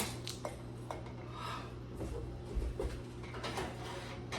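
A few light clicks and knocks of kitchen items being handled, with a sharp click at the very start, over a steady low hum.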